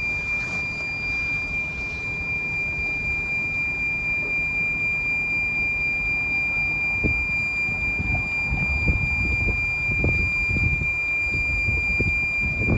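Wind buffeting the microphone, gusting harder in the second half, under a steady high-pitched tone.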